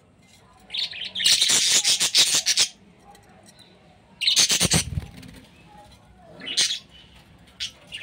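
Budgerigars calling in a clay-pot nest: harsh, rapid, scratchy chattering in two loud bursts, one about a second in and one about four seconds in, and a shorter call near the end.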